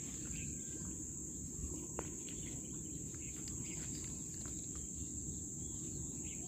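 Steady high-pitched chirring of insects, over a low rumble and a few faint ticks.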